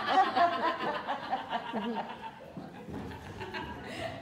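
A woman laughing in quick repeated bursts that fade out over about the first two seconds, followed by a faint murmur of the room.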